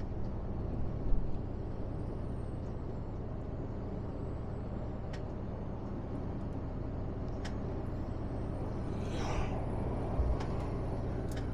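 Steady drone of a Mercedes-Benz Actros truck cruising on a motorway, heard from inside the cab: engine hum with tyre and road noise. A few faint clicks and a brief hiss about nine seconds in.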